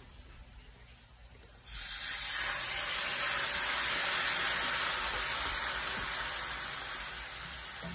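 Chicken stock poured into a hot bacon roux in a cast iron skillet, hissing and sizzling loudly as it hits the pan and flashes to steam. The hiss starts suddenly about a second and a half in, holds steady, then eases a little near the end.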